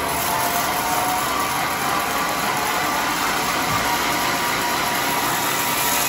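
Sawmill band saw running steadily with its engine, an even mechanical noise with no breaks.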